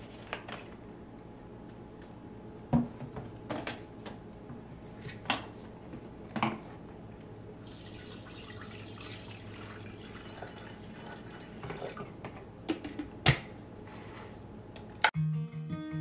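Water poured into a Filitaba glass electric kettle: a steady splashing stream for about four seconds, with knocks and clicks of the lid and handling before and after it. Near the end a click as the kettle is switched on, then acoustic guitar music starts.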